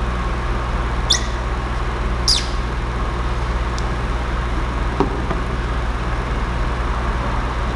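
A squeegee squeaking twice as it is pushed across wet paint protection film on a headlight, two short high squeaks a second apart that fall in pitch, over a steady low hum, with a faint click about five seconds in.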